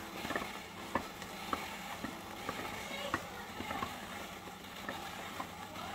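Hand-cranked plastic vegetable spiralizer cutting a cucumber into spiral strands: irregular small clicks and crunches from the blade and crank as it turns.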